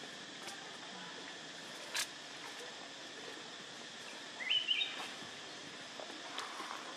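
Outdoor ambience with a steady background drone, a single sharp click about two seconds in, and a short high chirping animal call, rising in steps, about four and a half seconds in.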